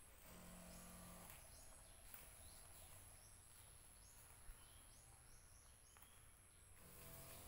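Near silence: faint outdoor ambience with scattered small bird chirps.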